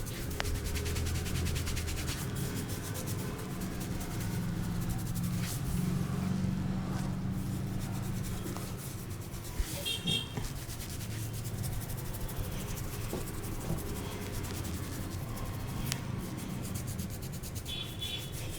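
Hands rubbing and scratching through hair and over the scalp in a head massage: a dense, continuous run of rustling scrapes over a steady low hum.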